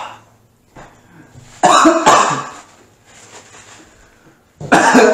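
A person coughing hard in two bouts about three seconds apart, set off by the burn of extremely hot chili wings.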